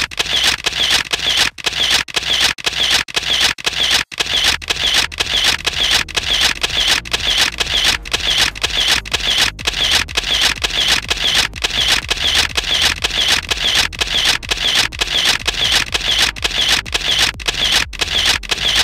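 Camera shutter clicks repeating steadily at about two a second, like a continuous burst of photos being taken.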